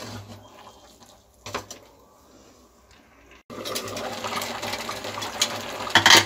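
Metal spatula stirring and scraping grated carrots cooking in ghee and milk in an open aluminium pressure cooker. About halfway through the sound turns louder, with a steady hiss from the cooking mixture, and sharp metal clanks come near the end.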